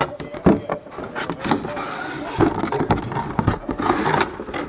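A cardboard box and its packaging being handled and opened close to the microphone: continuous rustling and crinkling with scattered knocks and scrapes.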